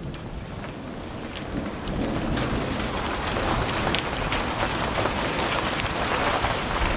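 Sleet mixed with rain falling steadily: a dense hiss with many small ticks of pellets striking, growing louder about two seconds in.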